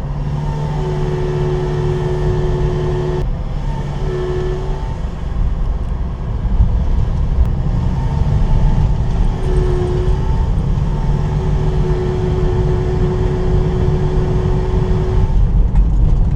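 Toyota HiAce van engine running with a low rumble, overlaid by a steady whistling tone that comes and goes several times: the abnormal noise the title blames on a failed compressor outlet elbow.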